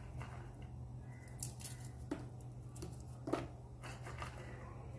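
A few faint, scattered clicks and taps as broken walnut pieces are dropped by hand into brownie batter, over a steady low hum.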